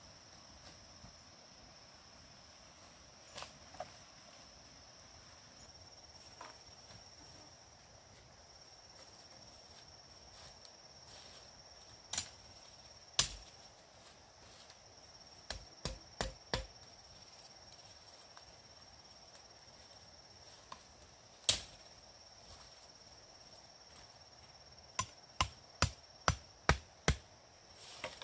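Insects trilling in a steady high drone, with scattered sharp strikes of a blade chopping bamboo. Near the end comes a quick run of about six strikes, roughly two a second.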